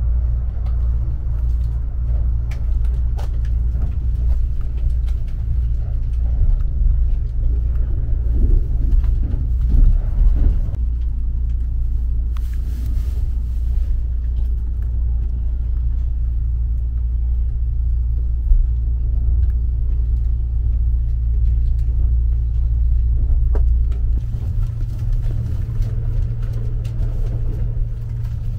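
Steady low rumble inside the passenger car of a Kintetsu Hinotori electric express train, with a few faint light clicks. The deepest part of the hum drops away about 24 seconds in.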